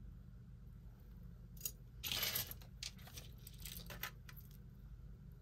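Small metal jewelry pieces clicking and clinking as they are handled and set down on the table, with a brief louder rattle about two seconds in.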